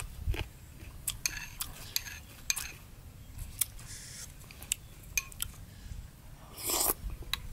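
Metal spoon clinking and scraping against a white ceramic bowl of chili sauce as a slice of raw salmon is dipped and lifted out, a scatter of sharp clicks. Near the end comes a short noisy mouth sound as the bite is taken.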